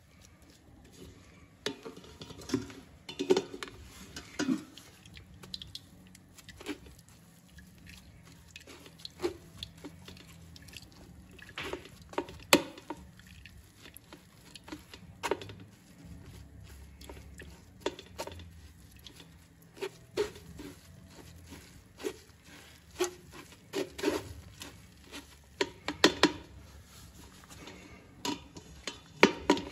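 Metal spoon pressing and scraping wet blended coconut against a mesh strainer over a stainless steel pot, squeezing out coconut milk: irregular scrapes and knocks, about one or two a second.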